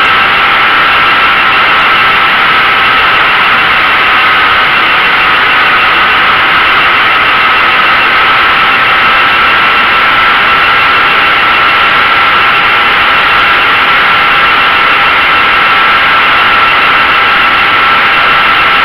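Model aircraft's motor and propeller heard from on board: a loud, steady drone with a high whine over a rush of wind noise, holding nearly constant pitch through the whole flight pass.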